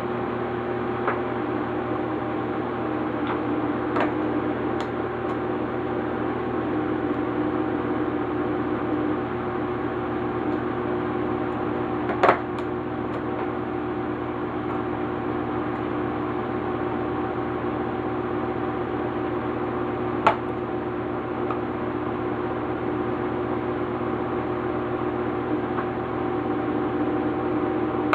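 A steady mechanical hum, with a few sharp clicks over it, the loudest about twelve seconds in and another about twenty seconds in.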